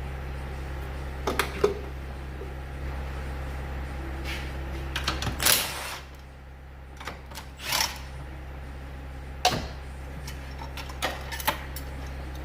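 Scattered metallic clinks and knocks of hand tools and parts being handled, a second or a few seconds apart, over a steady low hum.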